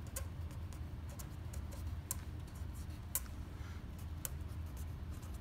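Felt-tip pen writing on a sheet of paper: irregular small clicks and faint scratches as the pen tip meets and leaves the paper, over a low steady hum.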